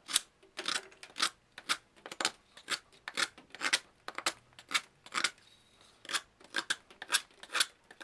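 Stainless-steel blade of a Coast DX340 folding knife whittling a wooden stick: quick shaving strokes, about two a second, each a short dry scrape as a curl of wood comes off.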